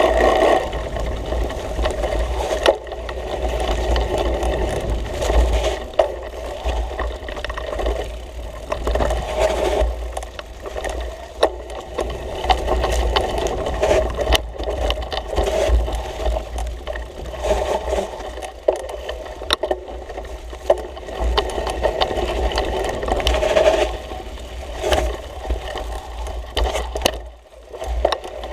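Mountain bike rattling and scraping over a rough dirt trail. The chain, frame and tyres give off a steady clatter, dotted with many short knocks.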